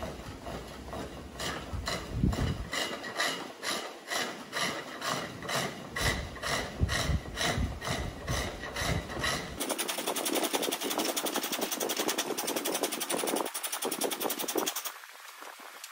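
A flat bench chisel cutting dry wood on a spring pole lathe, scraping in a steady rhythm of about three strokes a second as the treadle spins the work back and forth. About ten seconds in, the sound changes abruptly to a denser, hissier scraping.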